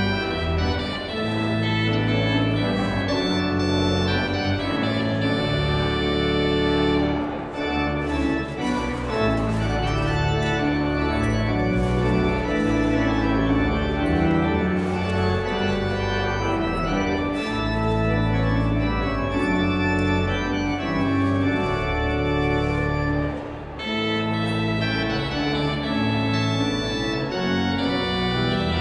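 Organ music: sustained chords over a strong, moving bass line, with short breaks between phrases about seven seconds in and again near the end.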